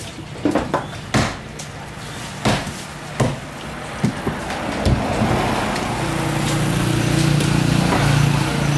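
Knife blade knocking against a wooden stump chopping block as a large barracuda is cut: about half a dozen sharp knocks over the first five seconds. From about halfway, a motor engine runs steadily.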